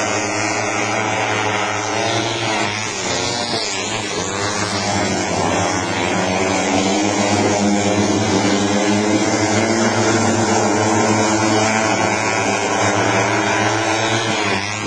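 Several junior speedway motorcycles racing together, their engines running at high revs with pitch rising and falling as the riders throttle on and off.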